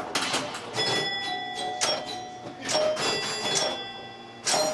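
Electro-mechanical pinball machine in play: its chime bells struck about once a second and ringing on after each strike, among the mechanical clicking of relays and score reels.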